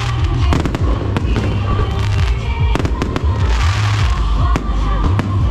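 Aerial fireworks bursting overhead: a string of sharp bangs, with a spell of dense crackling about three to four seconds in. Loud music with a heavy bass line plays underneath.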